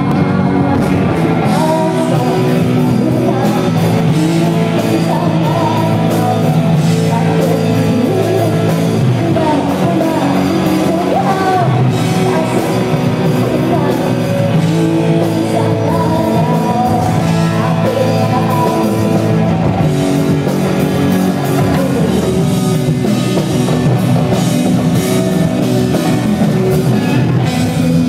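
A rock band playing live, with a woman singing lead over electric guitars and drums, recorded from the audience.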